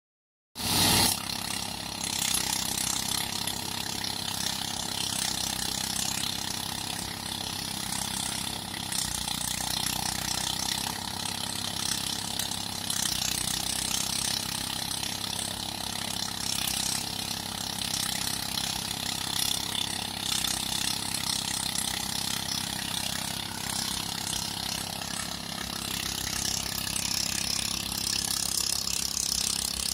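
Gajah Tunggal engine-driven rice threshing machine running steadily, a dense mechanical rattle of the threshing drum over the drone of its engine, starting abruptly just after the beginning.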